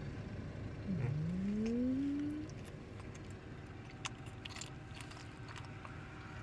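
Low steady rumble of a car's cabin, with a short rising hum about a second in and a few faint clicks later.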